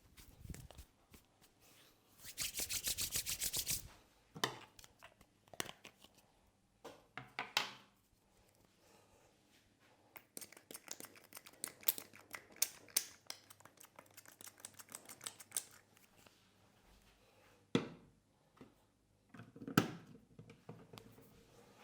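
Hands massaging a person's head and hair: close rubbing and crackling of hair and skin, with a fast, loud run of tapping strokes, about a dozen a second for nearly two seconds, a couple of seconds in, and scattered sharp clicks and slaps after.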